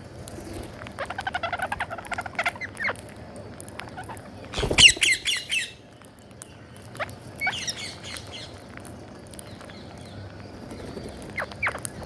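Rose-ringed parakeets squawking and chattering close to the microphone. A run of quick chatter comes in the first few seconds, then a loud burst of rapid shrill screeches about halfway through, and scattered shorter calls after it.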